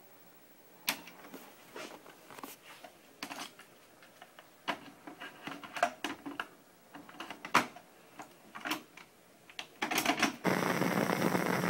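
A string of irregular sharp clicks and taps, a few a second. Music starts up abruptly near the end.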